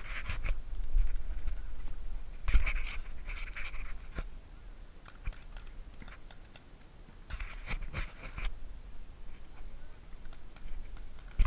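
Heavy breathing close to a head-mounted camera's microphone, in three bouts of about a second each, over a low wind rumble. A few sharp pops from paintball markers firing are scattered through it.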